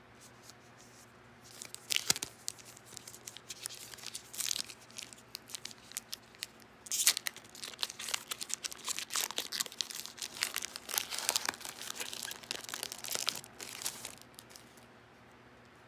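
A foil-lined Panini Revolution basketball card pack being torn open and its wrapper crinkled as the cards are pulled out: a dense run of crackling and ripping that starts about a second and a half in and stops shortly before the end.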